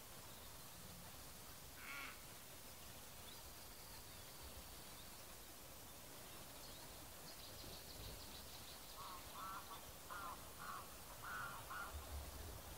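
Faint bird calls: a single short call about two seconds in, a high thin trill from a small bird, and from about nine seconds a run of about seven short calls in quick succession.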